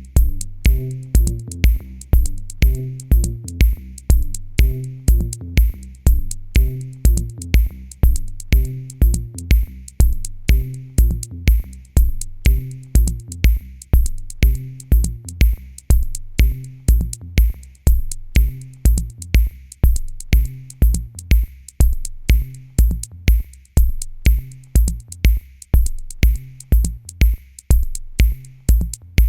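Electronic music with a steady drum-machine beat, about two kicks a second, over a repeating bass line.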